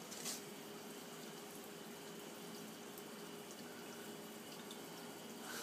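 Dry ice bubbling in a bowl of water: a faint, steady bubbling hiss.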